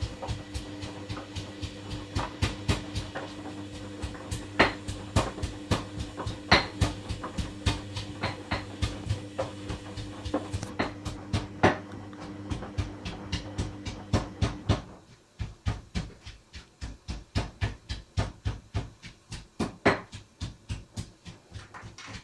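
Hoover Dynamic washing machine on a fast-tumble main wash: the drum motor hums steadily while the sudsy laundry tumbles with regular thuds, about two to three a second. About fifteen seconds in the motor hum stops and the thuds carry on, quieter.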